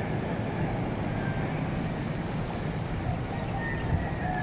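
Steady low rumbling outdoor noise, with a distant rooster beginning to crow near the end.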